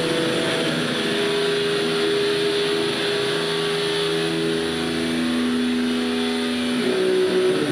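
Live band's keyboards and electric guitar playing a droning passage: held notes over a dense wash of noise. The chord shifts about a second in and again near the end.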